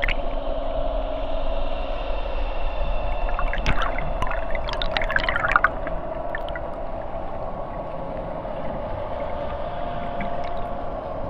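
Sound-design soundscape: a steady, sustained drone holding through, with a flurry of gurgling, splashing clicks about four to six seconds in.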